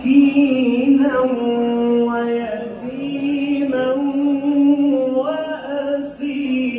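A man's voice chanting an Islamic devotional melody, holding long notes that slide between pitches.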